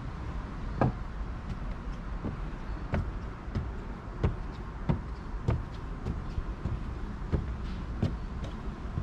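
Footsteps climbing steps at a steady walking pace, about three every two seconds, over a steady low rumble.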